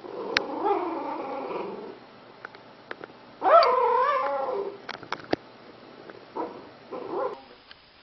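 A sleeping puppy whines and whimpers in its sleep. First comes a long wavering whine, then a louder whine that rises and falls about three and a half seconds in, and two short whimpers near the end.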